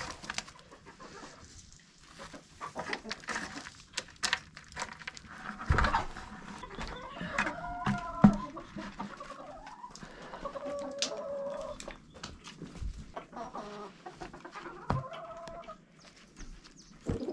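Domestic chickens clucking, with a few longer drawn-out calls around the middle and later on. Scattered knocks and scrapes sound throughout, the loudest a sharp knock about eight seconds in.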